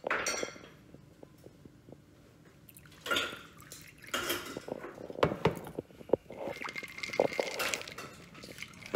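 Liquor poured from a glass bottle into a large glass of iced margarita, with ice and glass clinking. It is quiet for the first few seconds, then scattered sharp clinks and splashing follow.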